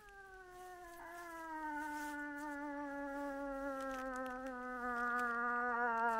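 A hunter's cow moose call: one long, drawn-out moan that slides slowly lower in pitch and grows steadily louder, calling to draw in a bull during the rut.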